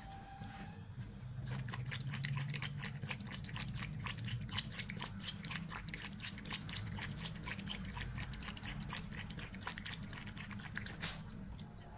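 A dog lapping water from a plastic tray: a fast, steady run of wet tongue-laps that stops about eleven seconds in.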